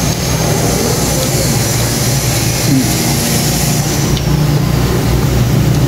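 Steady low mechanical hum with a hiss over it, and a faint high whine that fades out about four seconds in.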